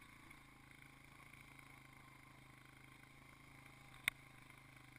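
Near silence: a faint steady hum of background noise, broken once by a single sharp click about four seconds in.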